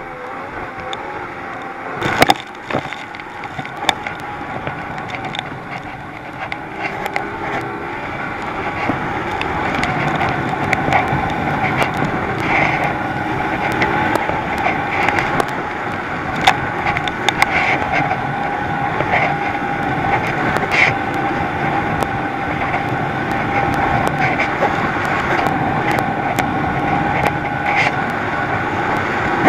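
Thundercat inflatable racing boat's outboard motor running at speed, a steady engine note that grows louder over the first ten seconds. Sharp knocks throughout from the hull slapping the chop, the loudest about two seconds in.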